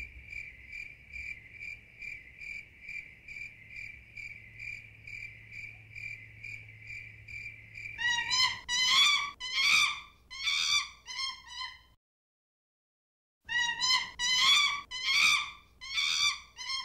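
Cricket chirping steadily at about two to three chirps a second, then a run of louder pitched, wavering calls about twice a second that stops for about a second and a half before a second run.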